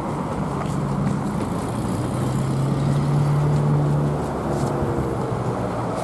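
A road vehicle's engine hum passing close by, growing to its loudest a little past halfway and then easing off.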